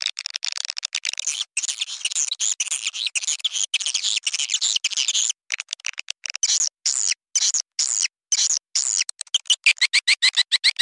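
Recorded swiftlet calls: high-pitched chirping and twittering, broken by many brief silent gaps, with rapid regular chirps about five a second near the end. This is the kind of call track played to lure swiftlets into a nesting house.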